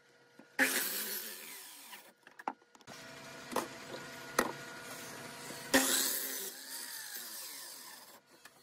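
Ozito sliding compound mitre saw cutting through wooden stock. Its loud cutting sound starts suddenly about half a second in and again near six seconds in, each time fading over a second or two. Between the cuts the saw's motor whirs steadily, with a couple of sharp wooden clicks.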